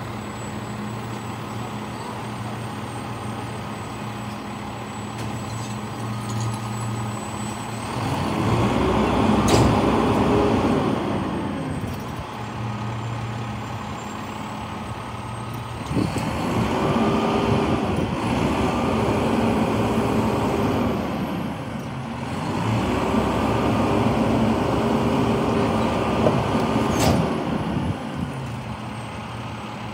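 Rear-loader garbage truck idling, then its engine revving up and back down three times, each time for about four to five seconds, as the hydraulic packer cycles to compact bulk trash in the hopper. There are two sharp short sounds, one about ten seconds in and one near the end.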